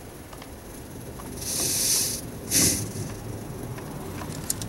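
Two bursts of hissing. The first lasts just under a second, starting about a second and a half in; the second is shorter and louder, right after it.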